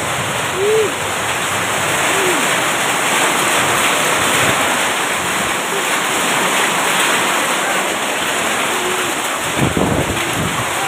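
Hail and heavy rain pelting down, a steady loud hiss of the downpour.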